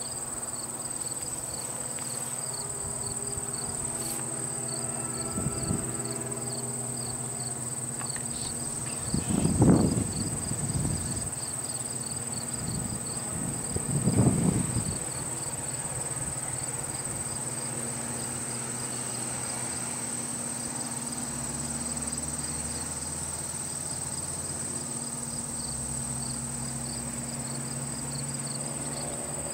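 Crickets chirping in a steady pulse over a continuous high-pitched insect buzz, with a low steady hum underneath. Two brief louder swells of low noise come about 10 and 14 seconds in, and the low hum strengthens a little after about 20 seconds.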